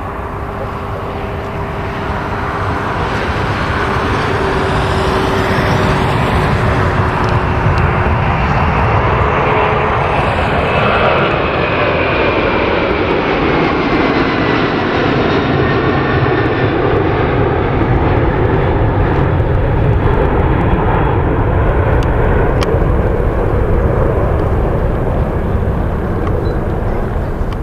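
Jet engines of a McDonnell Douglas MD-11F trijet freighter at takeoff power, a loud steady roar that builds over the first few seconds. Faint tones in the noise fall in pitch about halfway through as the aircraft passes.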